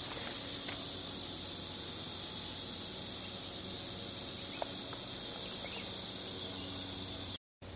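Steady high-pitched drone of an insect chorus, one even band with no pulses, cutting out abruptly near the end.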